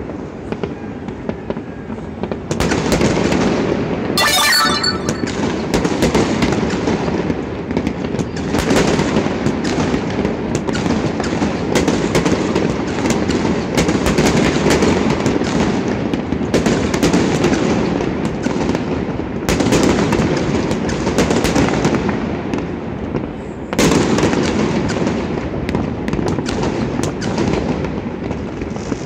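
Aerial fireworks display: a continuous barrage of bangs and crackling shells, swelling into heavier volleys several times, with a burst of fine crackle a few seconds in.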